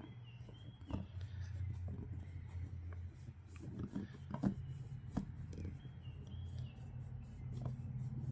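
Hands pressing and rubbing a rubber patch onto a cemented inner tube: soft rubbing with scattered small knocks, over a steady low hum.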